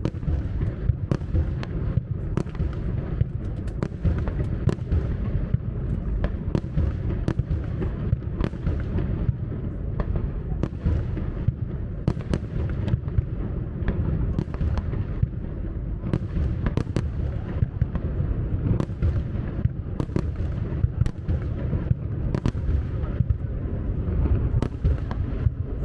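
Fireworks display: a continuous low rumble of shell bursts, with many sharp bangs and cracks following one another rapidly throughout.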